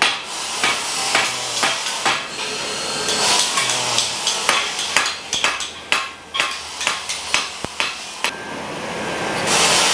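Irregular sharp metal knocks and clanks from hand work on motorcycle exhaust pipes at welding benches. There are bursts of hiss about three seconds in and again near the end.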